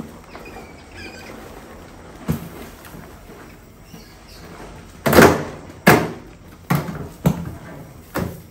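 A wire-mesh lid knocking and rattling against a plastic bucket as it is handled and lifted off, about six sharp knocks, the loudest about five seconds in. Faint high squeaks from the trapped mice about a second in.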